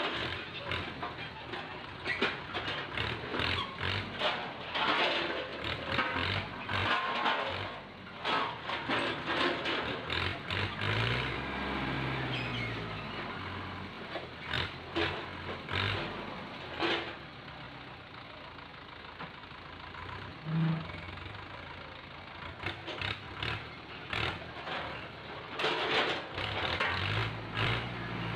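Tractor engine running under a hydraulic crane grabber loading oil palm fruit bunches, its revs rising and falling around the middle. Repeated knocks and clatter run over it as the grab and the bunches strike the trailer.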